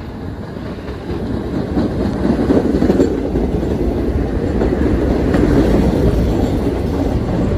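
1973 St. Louis-built R44 subway cars of a Staten Island Railway train pulling into the station past the platform, wheels running on the rails. The noise grows louder over the first few seconds as the cars come alongside, then holds steady.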